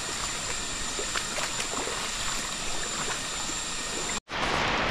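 A shallow river flowing over rocks, with faint scattered splashes from people wading through it. About four seconds in, the sound cuts out abruptly and is replaced by a steady hiss of rain.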